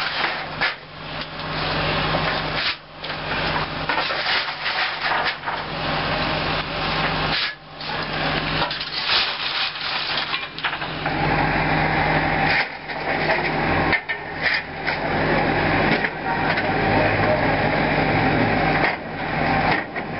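Coal shovel scraping and scooping coal off the steel cab deck of a steam locomotive to fire the firebox, with uneven scrapes and knocks over a steady low mechanical hum.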